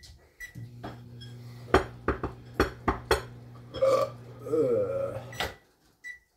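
Short electronic beeps, then a steady electrical hum from a kitchen appliance for about five seconds, stopping with another beep. Clinks and knocks of kitchenware sound over it.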